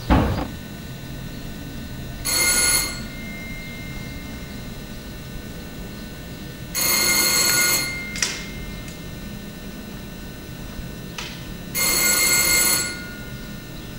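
A telephone ringing three times, each ring about a second long with about four seconds of quiet between, the one-second-on, four-seconds-off pattern of an Italian landline. A short thump at the very start.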